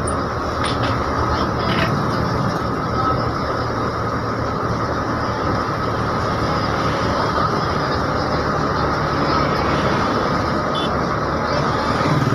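Steady engine and road noise of a moving bus, heard from inside the bus.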